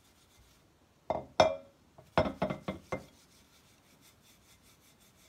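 A dish is knocked and clinked several times while being handled: twice about a second in, then a quick cluster of four or five knocks with a short ring. After that comes quiet, quick rhythmic rubbing as a damp cleaning cloth scrubs the dish's greasy inside.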